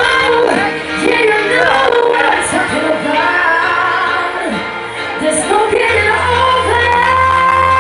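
Loud pop dance music with a singing voice, and about six seconds in a sustained chord with a heavy bass comes in and holds.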